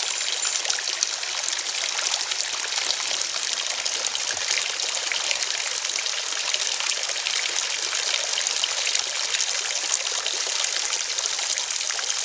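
Garden koi pond's small waterfall trickling and splashing steadily into the pond.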